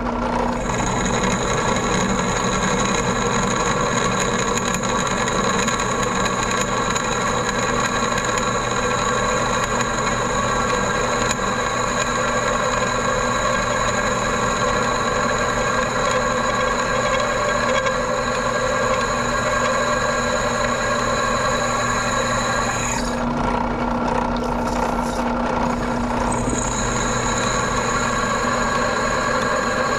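Drill press motor running steadily while a freshly resharpened twist drill bit cuts into rusty square steel tubing, a steady whine with several held tones. About three-quarters of the way through, the higher part of the whine drops away for a few seconds.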